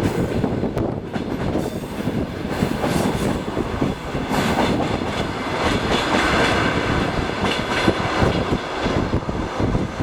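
Train wheels clattering on the rails: a steady, loud rumble with scattered sharp knocks.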